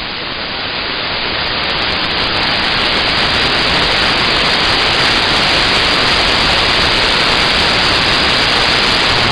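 CB radio receiver hissing with open static between transmissions: a steady rush of noise that swells slightly in the first couple of seconds, then holds.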